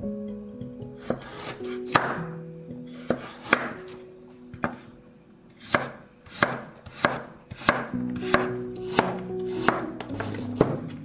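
Chef's knife slicing and dicing a carrot on a wooden cutting board, each cut ending in a sharp knock of the blade on the board. About a dozen strokes, spaced unevenly at first and coming more evenly, roughly one or two a second, in the second half, over soft background music.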